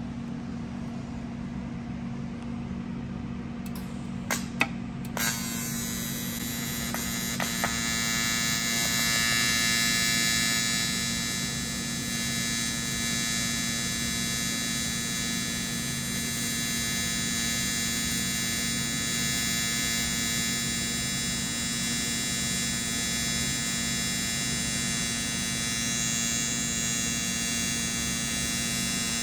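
AC TIG welding arc on thin 1/16-inch aluminum from a Titanium TIG 200 welder, run with the machine turned all the way up. A few sharp clicks come about four to five seconds in as the arc starts, then a steady electric buzz.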